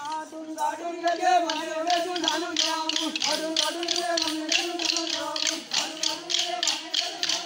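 Rhythmic clacking of wooden sticks struck together by the Tonya Khel stick dancers, about three to four strokes a second, over a sustained, slightly wavering melody.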